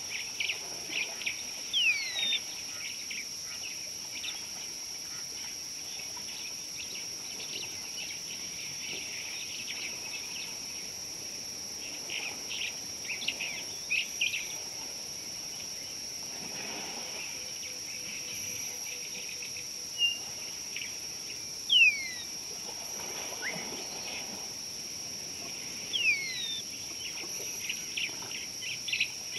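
Wildlife ambience: a steady high-pitched insect drone, over which birds call in short bursts of chirping and several falling whistled notes.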